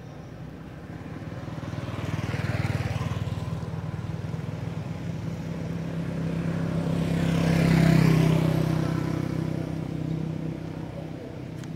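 Motor vehicle engines passing by, two in turn: the first swells and fades about two to three seconds in, then a louder one builds to a peak about eight seconds in and dies away.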